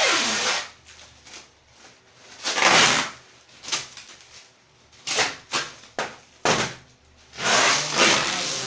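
Plastic and paper wrapping on a large flat parcel being torn and rustled open by hand, in about six short, loud bursts with quieter pauses between.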